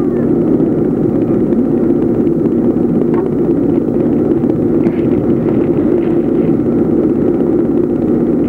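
A motor running with a steady, unbroken low drone.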